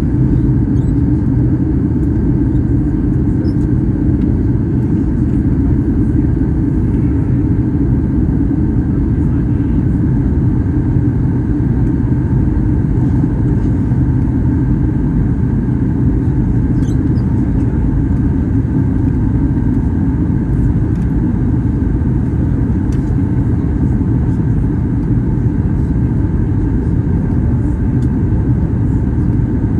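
Jet airliner cabin noise heard from a window seat over the wing in flight: a steady, even rumble of the engines and rushing air, with a faint steady hum above it.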